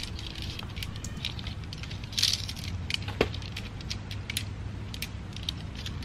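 Segmented tent poles being unfolded and their sections knocking and clicking together: a run of irregular sharp clicks and clacks, with a louder rattle about two seconds in, over a steady low rumble.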